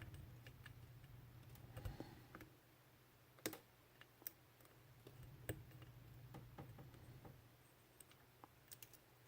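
Faint, scattered clicks and ticks of a steel lock pick working the pins inside a Cisa padlock's keyway while tension is held, over a faint low hum. A few sharper clicks stand out about three and a half and five and a half seconds in.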